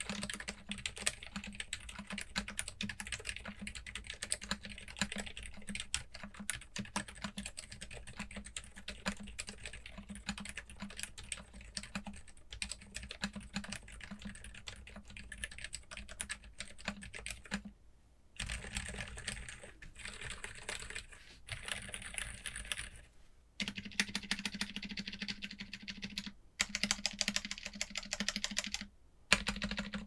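Fast typing on a modded CIY Tester68 keyboard fitted with stock Haimu X Geonworks Red silent linear switches, damped by a silicone plate dampener and bottom foam. The keystrokes come in a dense run, with a few brief pauses in the second half.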